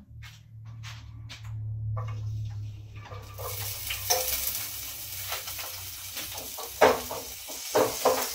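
Food frying in a pan on a gas stove: a sizzle starts about three seconds in and keeps going, with a few sharp clacks of utensils against the pan, the loudest near the end. Before the sizzle there is only a low hum and a few light clicks.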